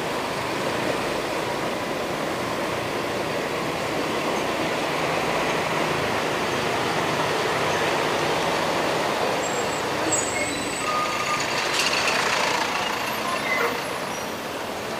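Motor scooter riding slowly in town traffic: a steady rush of wind and road noise with the scooter's engine running underneath. A sharp click comes about twelve seconds in.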